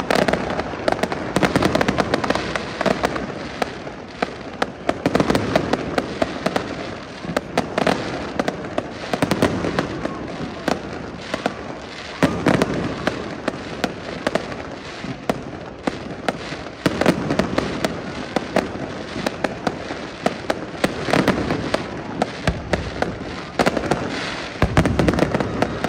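Fireworks going off: dense, rapid crackling and popping, with louder bursts every few seconds.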